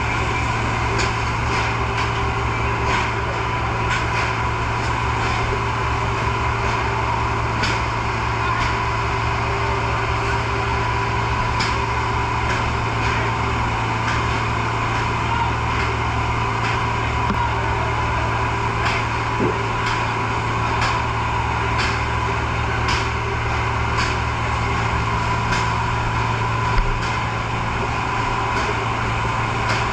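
Fire truck engine running steadily, a constant low drone with a held tone above it and scattered short clicks.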